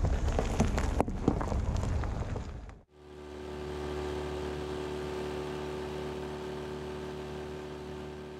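Tyres rolling over loose gravel, crunching with many small pops of stones. After a sudden cut, a small boat's outboard motor runs steadily at speed, fading in and then slowly fading away.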